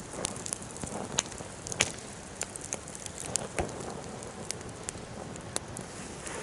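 Wood fire crackling: irregular sharp pops and snaps over a steady hiss of burning wood.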